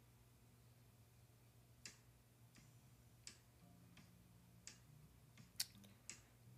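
Faint, irregular taps of a fingertip on a phone's touchscreen, about six over several seconds, over a faint steady hum.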